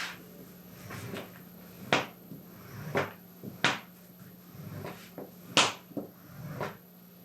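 Bone folder rubbed firmly over glued leather and stiffener to press the layers together: about six short rubbing strokes at irregular intervals, over a faint steady hum.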